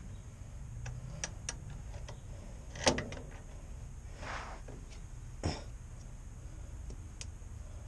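Scattered metallic clicks and knocks of a wrench working on a side-post battery terminal bolt, the loudest about three seconds in, with a short breathy exhale of effort near the middle.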